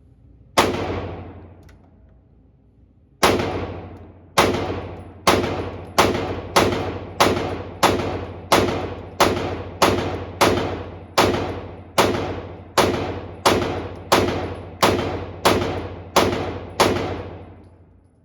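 Glock 45 9mm pistol with a Radian Ramjet Afterburner compensator firing: one shot, a pause of about two and a half seconds, then a steady string of about twenty shots a little under two a second, each with a long echoing decay. The even cadence with no stoppage is the gun cycling reliably on its 15 lb recoil spring.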